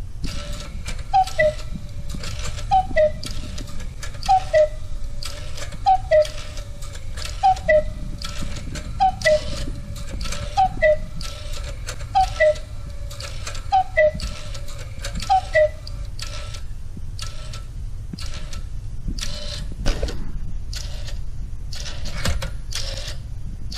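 Electromechanical cuckoo clock built from Meccano striking the hour: ten two-note falling cuckoo calls, one about every second and a half, meaning it is striking ten. The clicking of its gears and counters runs underneath and carries on after the last cuckoo.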